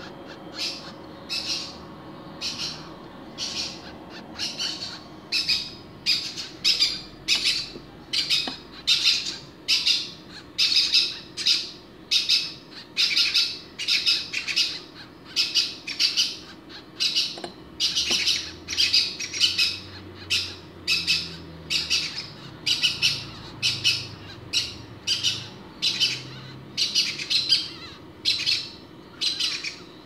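Newly hatched, still-naked bird chick cheeping over and over, short high calls about twice a second without a break: the begging calls of a hatchling.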